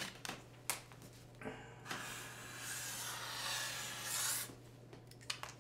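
Marker drawing on a sheet of paper: a few light clicks from handling the pen and paper, then a steady scratchy rub for about three seconds as a wave line is drawn.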